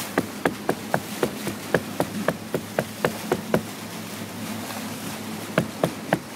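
Boat engine running slowly: a steady train of sharp knocks, about four a second, over a faint low hum.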